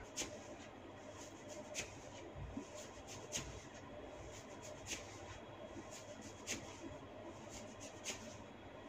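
Sharp cracking pops from tufts of hair being pulled tight and snapped at the scalp (cetut rambut hair cracking). The pops come about every one and a half seconds, with fainter clicks between them.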